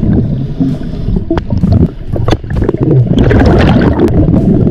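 Underwater rumble and bubbling from a scuba diver's exhaled air, heard through a GoPro in the water. There is a louder, brighter gush of bubbles from about three seconds in, with a few small knocks.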